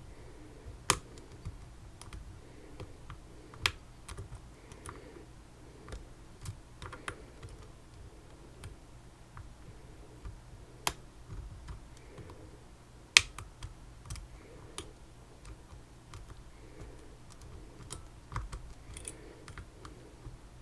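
Irregular small clicks and taps of picking tools working in a Tesa TK100 lock, with a few sharper clicks standing out.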